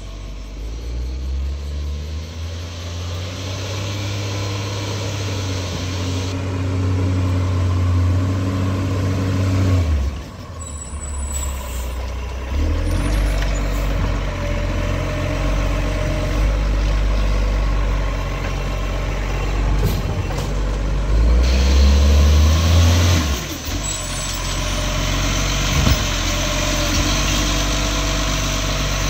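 Iveco side-loading garbage truck's diesel engine pulling up, revving and dropping back several times as it slows and stops, with a hiss that fits its air brakes. Near the end the engine holds a steady higher speed while the hydraulic side arm lifts a bin.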